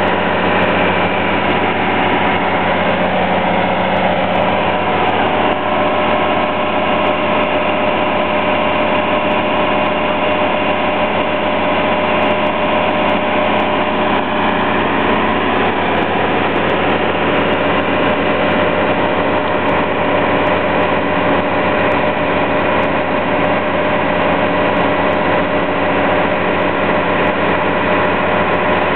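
A fire engine's diesel engine running steadily at the fire ground, a constant hum with several steady tones that neither rises nor falls.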